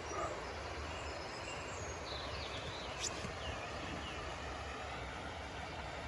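Small birds chirping in short high calls over a steady low rumble, with a single sharp click about halfway through.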